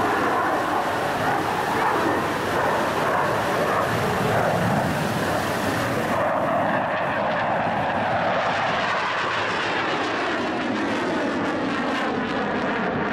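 Saab Draken jet fighter's afterburning turbojet, a Rolls-Royce Avon derivative, running loud and steady during a display flypast. The noise goes duller about six seconds in, and toward the end its tone sweeps as the jet passes and climbs on afterburner.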